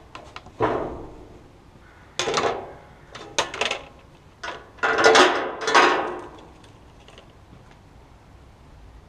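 Replacement side-mirror glass and its plastic backing plate being handled: a series of short clacks and scrapes, the longest and loudest a little past the middle.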